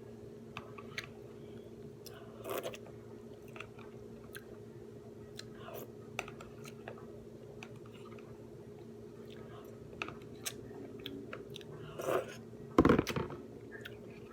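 A person chewing and biting into takeout food close to the microphone, with scattered crunches and one louder crunch near the end, over a steady background hum.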